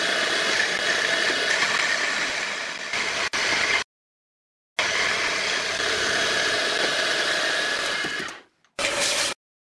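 Deckel G1L engraving machine running, its spindle driving a small end mill that cuts the pocket of a template plate: a steady whine with cutting noise. The sound drops out abruptly for about a second just under halfway through, then fades out near the end.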